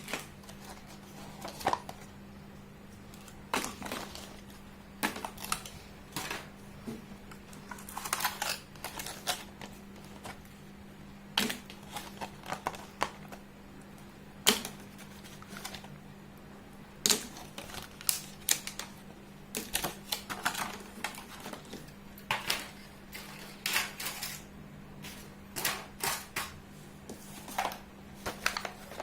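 Miniature toy pieces being handled and set down, making irregular sharp clicks and taps, some in quick clusters, over a faint steady hum.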